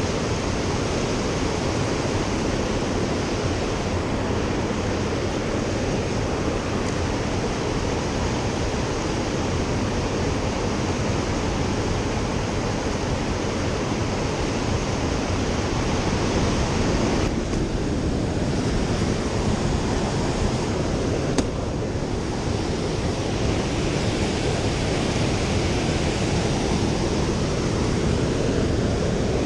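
Mountain river water rushing steadily, a continuous even noise of flowing current.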